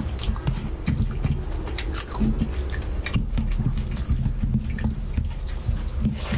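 Close-miked eating sounds: wet chewing and lip-smacking, with the squish of rice being mixed into rajma (kidney bean curry) by hand, in many short irregular clicks.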